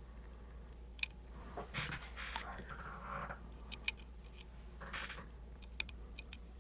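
Lock picks working in the keyway of an Emhart Black Belt pin-tumbler lock: a few sharp small clicks, the loudest about a second in, near four seconds and near six seconds, with softer scraping between.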